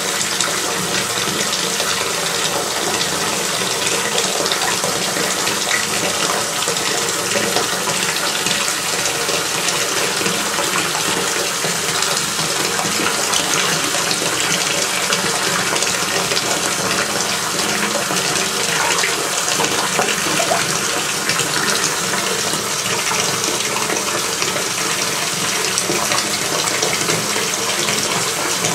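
Water running steadily from a tap into a bathtub with shallow water in it.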